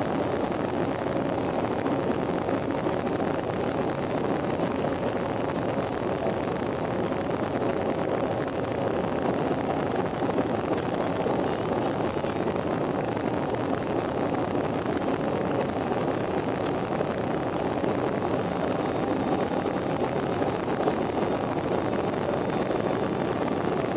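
Steady cabin noise of a jet airliner climbing after takeoff: engine and airflow noise heard from inside the passenger cabin, an even hum that does not change.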